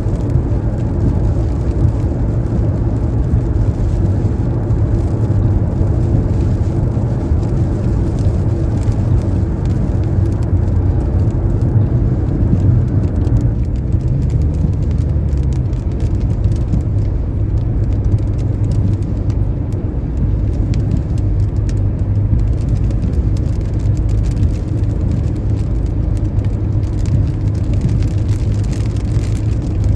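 Car driving at highway speed on a wet road in the rain: a steady, low rumble of tyre and engine noise with rain hiss. The higher hiss eases a little about halfway through.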